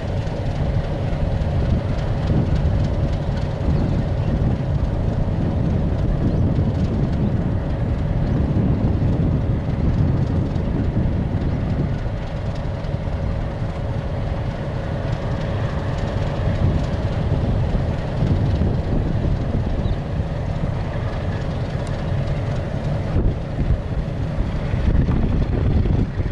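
Metre-gauge train running on the track: a steady rumble with a faint constant hum over it.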